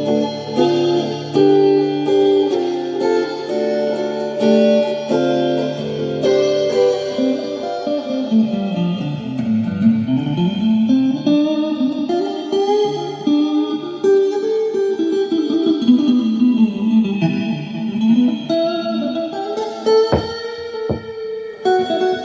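Guitar improvisation: held notes over a steady low note, then a line that slides down in pitch and back up about ten seconds in, and a few sharp percussive hits near the end.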